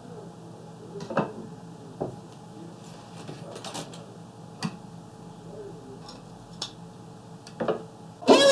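Handling of an opened hard disk drive and its cable: several sharp, separate metallic clicks and knocks as the cable is plugged in and the drive is set down on a wooden desk. Right at the end, loud scratched music starts.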